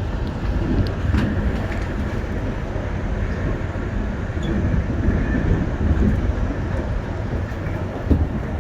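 Electric commuter train running at speed, heard from inside the car: a steady rumble of wheels on rails with a few faint clicks.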